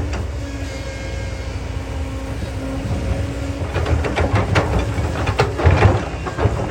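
Kobelco excavator's diesel engine running steadily with a constant whine on top. About halfway in, a run of irregular clanks and crunching scrapes starts as the bucket works the dirt.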